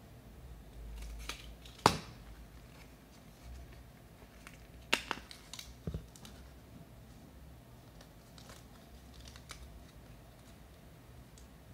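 Hard plastic RAM module case being opened and handled: sharp plastic clicks and snaps, the loudest about two seconds in and two more around five and six seconds, with lighter ticks between.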